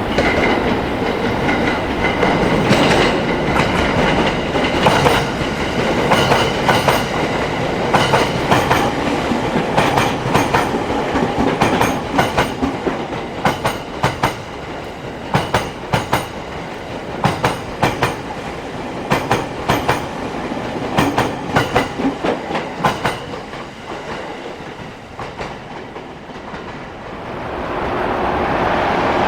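A 10-car JR East E231 series electric multiple unit passing on the rails, its wheels clacking in quick groups over the rail joints above a steady rolling rush. The clacks thin out after about 23 seconds, and a louder steady rush rises near the end.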